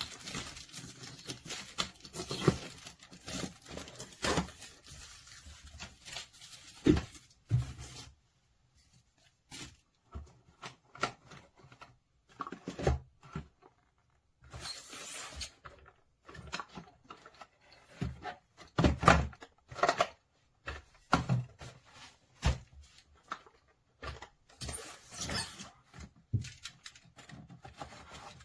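Irregular handling noises at close range: knocks and thuds of objects being picked up and set down, with short rustles in between and a few pauses of silence.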